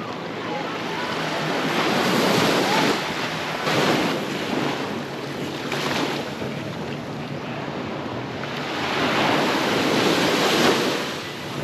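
Sea waves breaking and washing up a sandy beach, surging several times and then ebbing, with wind buffeting the microphone.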